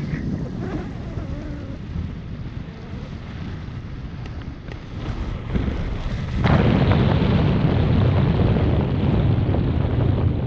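Air rushing over the microphone of a camera on a paraglider in flight: a steady wind roar that gets much louder suddenly about six and a half seconds in.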